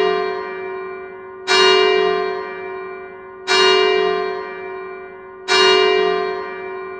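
A single church bell tolling slowly, struck once every two seconds at the same pitch, each stroke ringing on and fading before the next.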